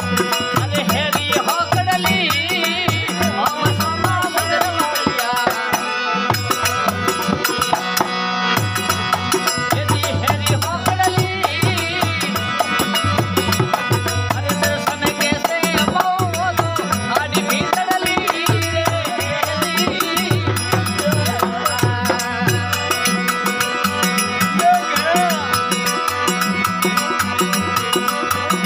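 Devotional folk bhajan music: a steady hand-drum beat with rattling percussion under a wavering melody line and a held drone.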